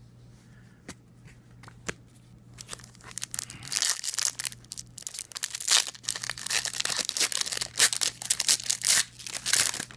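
A trading-card pack's plastic wrapper being torn open and crinkled: a few light clicks at first, then dense crackling from about three seconds in.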